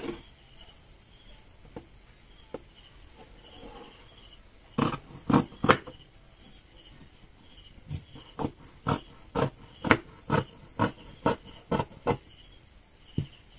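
Scissors snipping through four-way stretch knit fabric: a quick cluster of snips about five seconds in, then a steady run of snips about two a second.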